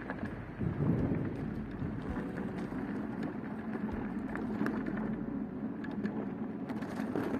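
A vehicle's engine running, heard as a steady low rumble, with a few faint clicks over it.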